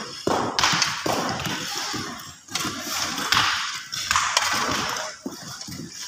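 A long-handled digging tool scraping and chopping through stony soil and loose rubble, with stones clattering. The strokes are rough and irregular, each lasting about half a second to a second.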